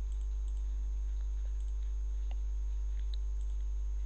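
Steady electrical mains hum from the recording chain, with a few faint, sharp computer-mouse clicks.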